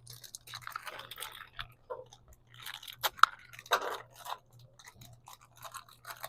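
Hands handling plastic packaging and small kit parts: irregular crinkling and crackling with sharp clicks scattered throughout, over a faint low steady hum.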